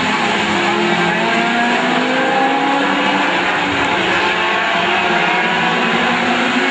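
A pack of VW Gol touring race cars running together through a corner. Several four-cylinder engines are heard at once, their overlapping pitches rising and falling as the drivers lift and accelerate.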